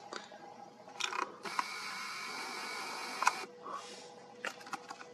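A few sharp clicks, then a small mechanism whirring steadily for about two seconds, followed by a quick run of clicks near the end.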